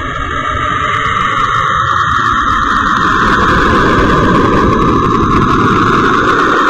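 A 'sound of a planet' space recording: a steady, eerie drone of hiss and rumble, swelling over the first few seconds and then holding. It is the kind of spacecraft radio and plasma-wave data turned into audio that such planet-sound compilations use.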